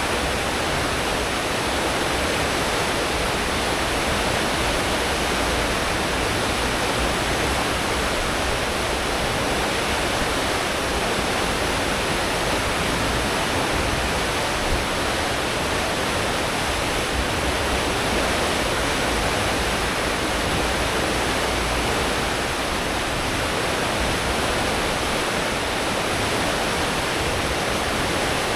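Cruise ship's wake churning behind the stern at full speed: a steady rushing of water, with a low rumble from the engines and propellers beneath it.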